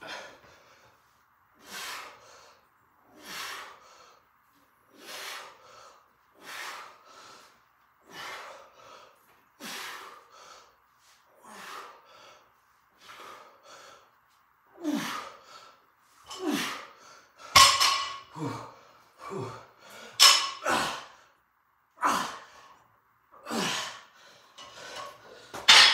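Hard breathing in time with barbell bent-over rows: a sharp breath about every second and a half, growing louder, quicker and more strained in the second half, with short grunts, as an as-many-reps-as-possible set is pushed toward failure.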